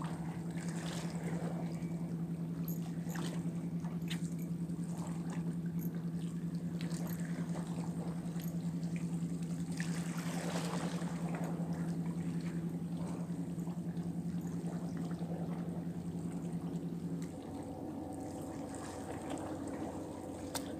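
Water splashing and trickling against shoreline rocks, with a louder rush of water about ten seconds in, over a steady low motor hum that changes pitch about seventeen seconds in.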